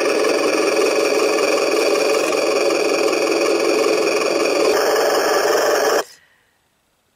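RC 6x6 truck's electric drive motor and gearbox whining steadily as it crawls through deep snow, then stopping abruptly about six seconds in.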